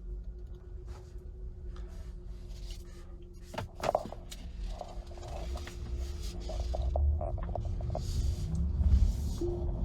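Steady hum inside a Tesla Model Y Performance's cabin, the persistent humming the owner complains of. A few clicks come about three and a half seconds in, then low road rumble builds as the car pulls away.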